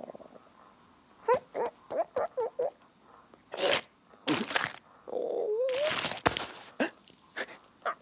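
Cartoon bird character's short squawking vocal noises: a quick run of about six chirps early on, then a few loud rushing swish effects and a warbling, wobbling cry about five seconds in.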